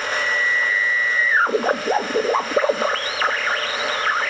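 BC-348 aircraft receiver's beat frequency oscillator sounding as a steady high whistle against the tuned station's carrier, over background hiss; about a second and a half in the whistle slides down in pitch and then warbles up and down. The beat note shows the BFO is working.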